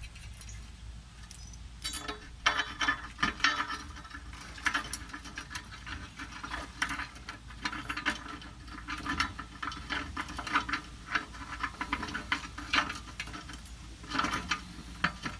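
Irregular light metallic clicks, taps and scrapes of a steel exhaust flange gasket and the rusty pipe flanges being handled and lined up by hand, starting about two seconds in, over a low steady hum.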